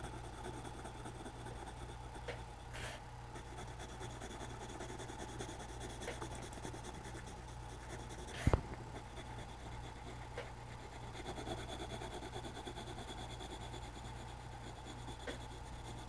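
Black coloured pencil scratching back and forth on drawing-pad paper as it shades in a wheel. A single sharp tap about halfway through.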